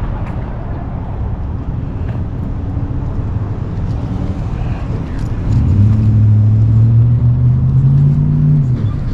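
Motor vehicle engine and road rumble. About five and a half seconds in, a deeper engine note comes in and rises slowly in pitch for about three seconds, as when accelerating, then drops away.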